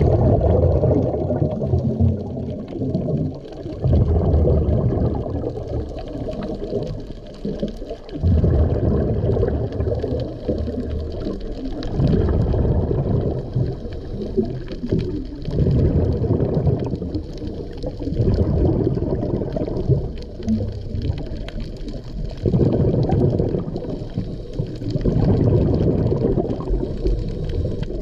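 Muffled underwater water noise heard through a submerged camera: low, gurgling rumbles of water and bubbles that swell and fade in waves every three to four seconds.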